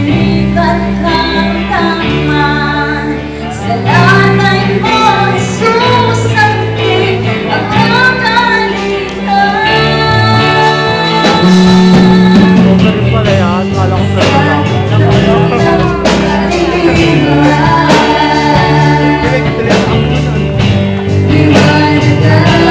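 Worship song sung by a small vocal group of two women and a young man into microphones, over instrumental accompaniment with a steady bass line, heard through the hall's loudspeakers.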